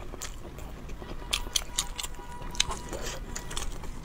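Chewing and biting sounds of a person eating, with many short crisp clicks.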